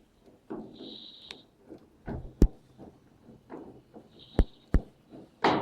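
Sharp knocks and handling clatter of a GE top-loading washing machine's cabinet panels being closed up and screwed shut, with two short high whines about a second in and again near the four-second mark.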